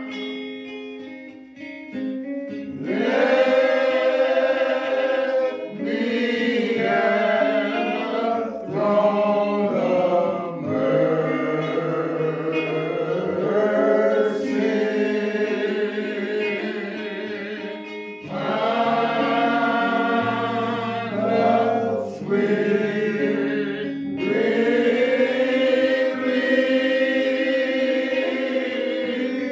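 Slow choral singing in long held notes, with short breaks between phrases.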